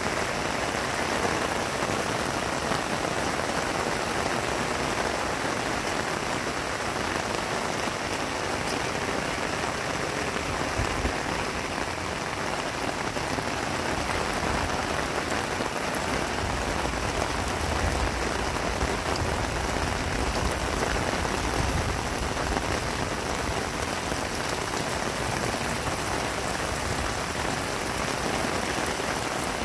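Heavy rain falling steadily on grass, plants and garden, a dense, even hiss of countless drops.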